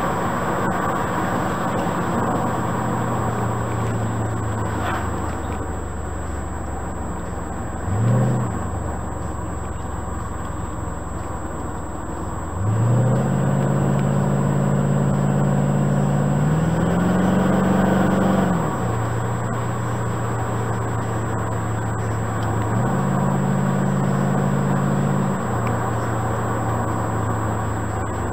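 1969 Corvette C3 Stingray V8 engine on the road, heard from inside the car over tyre and wind noise. The engine note steps up and down as the car slows and accelerates through bends: a short blip about eight seconds in, a sudden jump in pitch near the middle, then a rise and fall. Near the end it steps up again and drops back.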